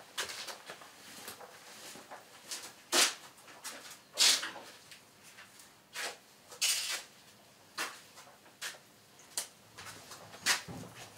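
Thin metal shim stock being cut and handled while shims are made up for the headstock bearing caps: a series of irregular, sharp snips and clicks, roughly one a second.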